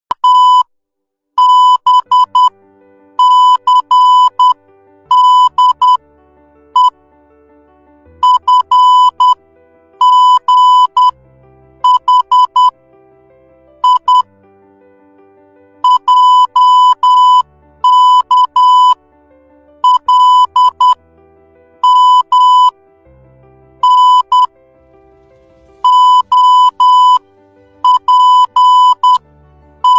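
Morse code letters of the alphabet sent as a single-pitched electronic beep tone: short and long beeps in one group about every two seconds, each group a letter. Soft background music plays underneath.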